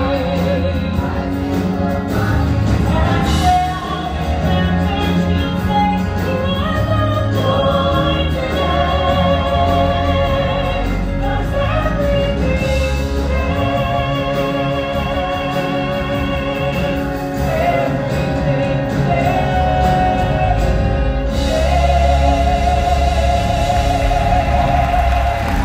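Live Broadway musical theatre singing: a high voice sings with vibrato over a pit orchestra and ensemble voices, swelling to a long, loud held note near the end.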